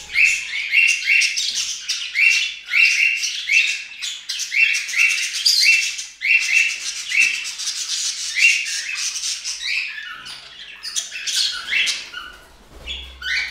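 Budgerigars squawking: short, sharp calls repeated about twice a second, then quicker, more varied chatter after about ten seconds.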